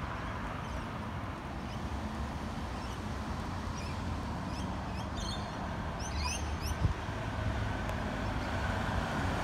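Steady road-traffic rumble that slowly grows as a Scania K280UB city bus draws near. Small birds chirp several times in the middle, and there is one sharp tick near the end.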